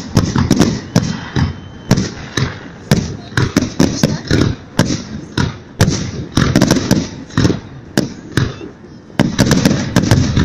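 Victory Day fireworks salute: a rapid, irregular string of loud sharp cracks and deeper booms, several a second, with no pause.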